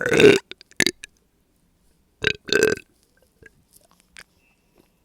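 A woman burping from the gas of drunk soda: a loud burp at the start and a short one just after, then another short and longer pair about two seconds later.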